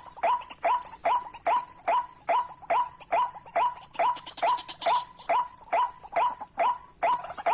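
White-breasted waterhen's call repeated over and over in a steady rhythm, about two short notes a second, each dropping quickly onto a clear tone.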